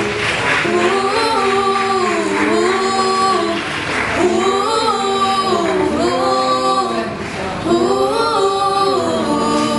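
Two girls and a boy singing a song together, unaccompanied, in a run of long held notes.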